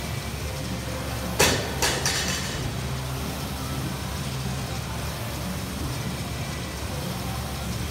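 Air rowing machine's fan flywheel whirring steadily as it is rowed. Two loud knocks come about a second and a half in, half a second apart.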